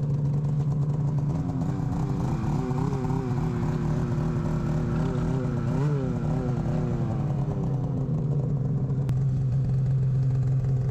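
Snowmobile engine idling steadily. Over several seconds in the middle, a second engine rises in pitch to a peak about six seconds in and then falls away.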